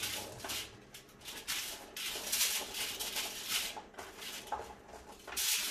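Hands tossing halved baby potatoes and chickpeas on a foil-lined sheet pan: the aluminium foil rustles and crinkles in short, irregular scrapes as the pieces are pushed around.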